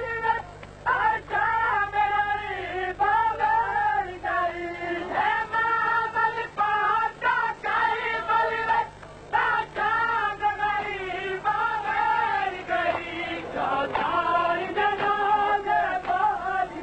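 Noha, a Shia lament, sung by a voice in a high register in phrases a second or two long, with brief breaks between them.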